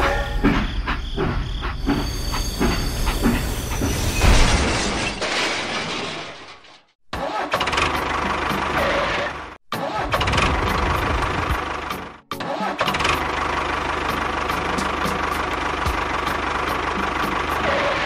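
A small engine running steadily, in several short clips joined by abrupt cuts.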